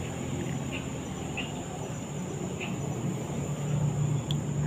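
A steady, high insect trill, typical of crickets, with a low hum beneath it, and a few faint clicks of a man chewing food with his mouth closed.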